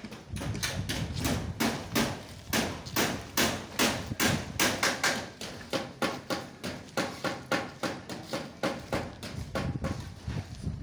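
Rapid, regular knocking, about two to three sharp knocks a second, going on without a break.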